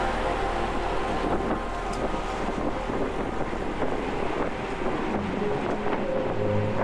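Wind rushing over the camera microphone while cycling in a race, a steady noise with no speech.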